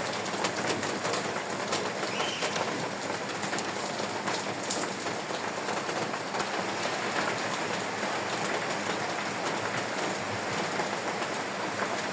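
Steady rain falling, an even hiss with a dense patter of individual drops striking a surface.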